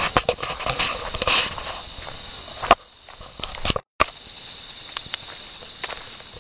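Footsteps on rough ground, crowded and crunching in the first half. After a brief cut the steps are sparser, and an insect trills in fast, even pulses.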